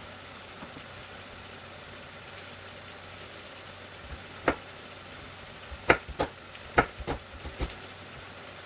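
Food frying in a pan with a steady hiss, and a handful of sharp knocks of a cooking utensil against the pan in the second half, as when stirring.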